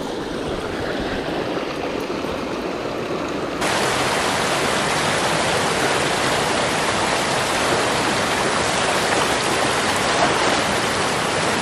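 Small mountain creek rushing over rock cascades: a steady, loud rush of water. About three and a half seconds in the rush turns brighter and fuller.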